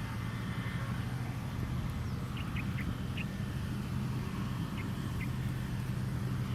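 Sparrow chicks chirping: four short high chirps in quick succession a little over two seconds in, and two more around five seconds, over a steady low hum.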